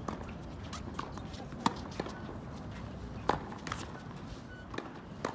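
Tennis balls struck by rackets and bouncing on a hard court during a baseline practice rally: a string of sharp pops, the two loudest about a second and a half apart near the middle, with fainter bounces and footsteps between.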